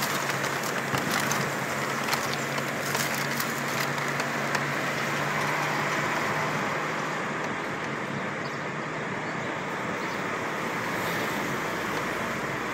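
A car driving along a city street, heard from inside the cabin: steady road and engine noise, with a low engine hum that fades out about halfway through.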